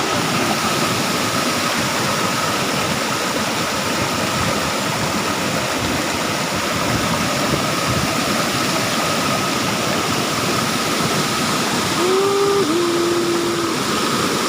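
Waterfall rushing in a loud, steady roar. A brief two-part pitched sound comes near the end.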